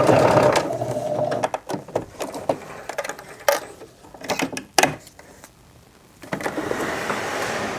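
Sewing machine finishing a zipper seam and stopping about half a second in, followed by scattered clicks and knocks of handling, then a soft steady rustle of fabric near the end.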